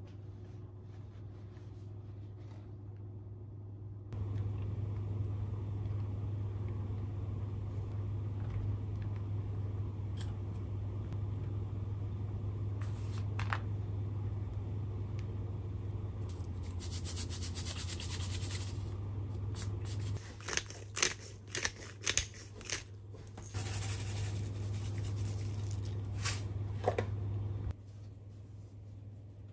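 A steady low mechanical hum switches on about four seconds in and cuts off near the end. Over it come scraping, crunching and several sharp clicks.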